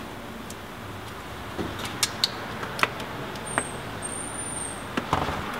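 Scattered small plastic clicks and taps as a satellite radio tuner is handled and pressed into place on a car console with double-sided tape, over a steady low hum.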